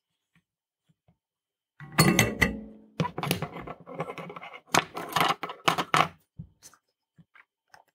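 Irregular clattering and rattling of small hard objects being handled on a workbench, starting about two seconds in and stopping about six seconds in.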